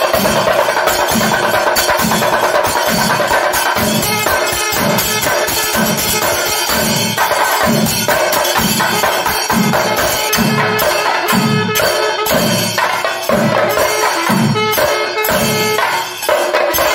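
Chenda melam: a group of Kerala chenda drums beaten with sticks, fast dense strokes over a steady deep beat about every three-quarters of a second.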